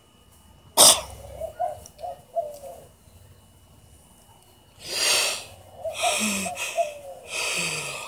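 A woman sneezes once, sharp and sudden, about a second in. In the second half come long breathy yawns, the last with her voice sliding down in pitch near the end.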